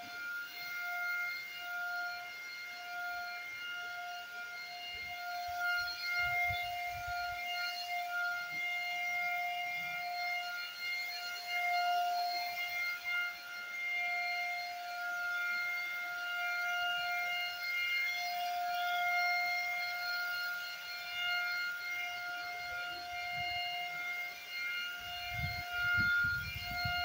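Handheld electric paint spray gun running with a steady high motor whine while spraying wood polish, its strength wavering slightly as the gun is moved. Some low bumps come in near the end.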